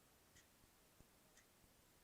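Near silence with faint ticking, two ticks about a second apart, part of a regular once-a-second ticking.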